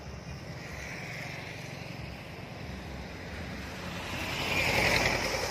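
Road traffic on wet asphalt: a steady low rumble, a motorbike's tyres hissing by about a second in, then a truck passing close with loud tyre spray hiss, loudest about five seconds in.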